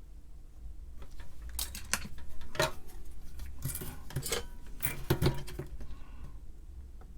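Small metal tools clinking and clattering on a workbench during desoldering work: a run of light clicks and taps from about a second in until near the end, over a low steady hum.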